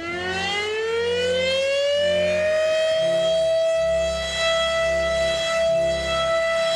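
Civil defense siren winding up: its wail rises in pitch for about two and a half seconds, then holds one steady tone.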